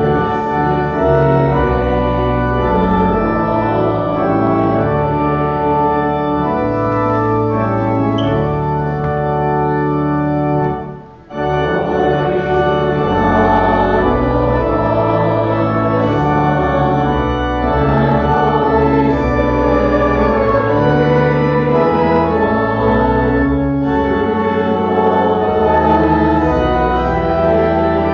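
Church organ playing a slow hymn tune in full sustained chords, with a short break about eleven seconds in.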